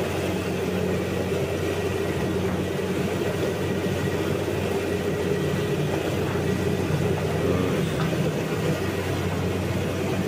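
Combine harvester running steadily, its engine and machinery giving a constant drone with a low hum.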